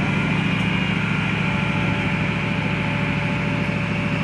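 Crawler crane's diesel engine running at a steady speed: a constant low hum with a few fixed whining tones above it.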